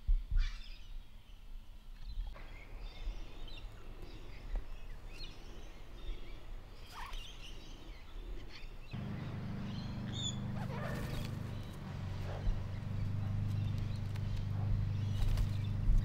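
Australian king parrots giving scattered short calls and chirps. A low steady rumble comes in about halfway through.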